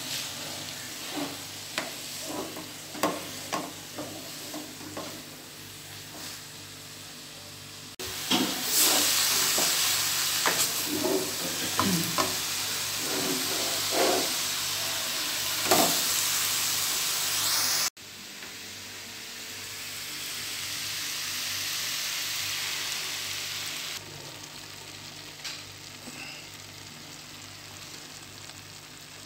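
Grated carrots frying and sizzling in a nonstick pot while a wooden spatula stirs them, with repeated short scrapes and knocks against the pan. The sizzle turns louder abruptly and later drops back a few times.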